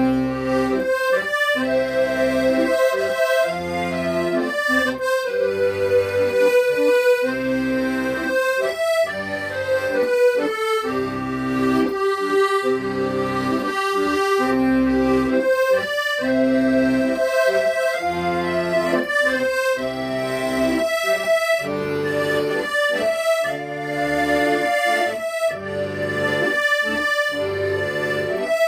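Accordion playing a slow song melody in long held reedy notes over a regular alternating bass-and-chord accompaniment, with brief breaks between phrases.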